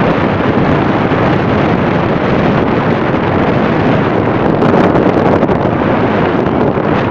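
Loud, steady wind rush buffeting the microphone while riding along a road, with the vehicle's running and road noise mixed underneath.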